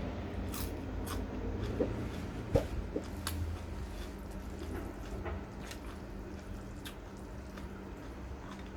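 A person eating close to the microphone: soft wet squishing and scattered light clicks, busiest in the first few seconds, over a steady low hum.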